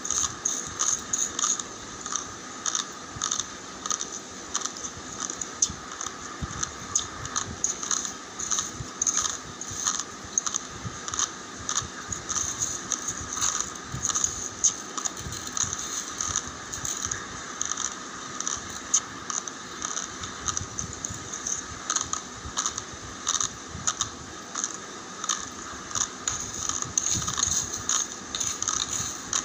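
Dry raw long-grain rice crunching and crackling in dense, irregular clicks.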